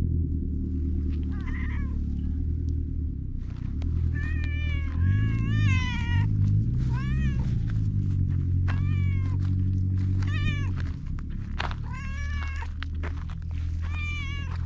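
Tabby-and-white stray cat meowing about eight times as it walks, each meow rising then falling in pitch, over a steady low hum.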